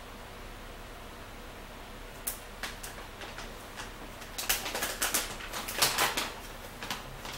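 Crackling and crunching from crisp cookie-crackers being handled and eaten: a couple of sharp clicks about two seconds in, then a dense run of crisp crackles in the second half.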